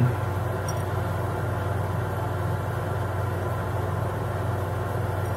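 Steady low hum of a running machine or appliance, even and unchanging, with no other sound standing out.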